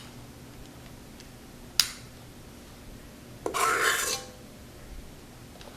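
A metal spoon dropping meringue cookie dough onto a parchment-lined baking sheet: one sharp clink a little under two seconds in, then a short scraping rustle about three and a half seconds in.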